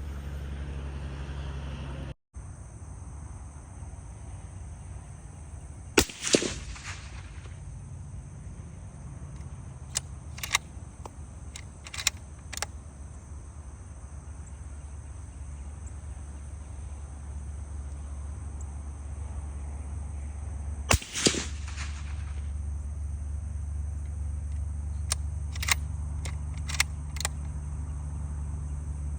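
Two shots from a .308 bolt-action rifle suppressed with a SilencerCo Scythe Ti, about fifteen seconds apart. Each is a sharp crack with a second crack a fraction of a second after it. Lighter clicks of the bolt being worked follow each shot.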